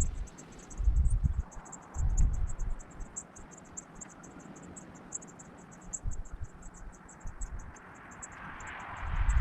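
Wind buffeting the microphone in low rumbling gusts, over a steady, rapid, high-pitched ticking. A rising hiss builds near the end.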